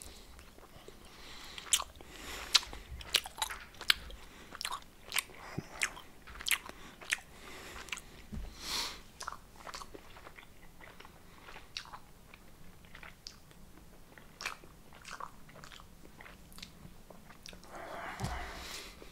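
Close-up chewing of Trolli gummy candy: irregular sticky mouth clicks and smacks, dense for the first several seconds and sparser after, with a short louder rustle near the end.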